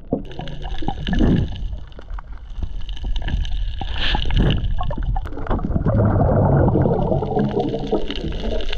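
Muffled underwater rumble and bubbling of surf churning over a shallow coral reef, heard with the microphone held under the surface as a breaking wave passes overhead.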